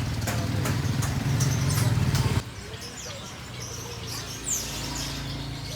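An engine running with a steady regular clicking over it, then after an abrupt change about two and a half seconds in, small birds chirping at a lower level.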